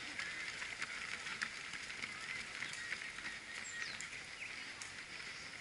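Roadside ambience of a road race: runners' footsteps as light, irregular taps on the asphalt over a steady high hiss, with faint short chirps.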